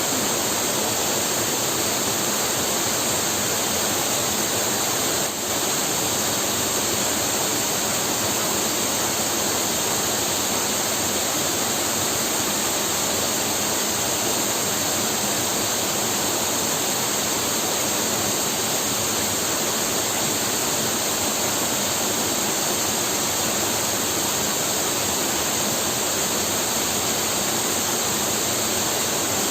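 Waterfall pouring into its pool, a steady, even rush of falling water.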